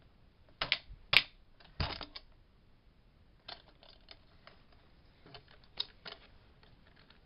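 Scattered clicks and knocks of scooter parts being handled as a peg and axle are lined up with the wheel; the sharpest click comes just over a second in.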